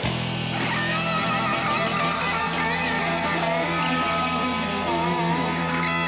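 Live rock band playing, electric guitar to the fore with wavering, bending notes over steady low bass notes; the music gets louder right at the start.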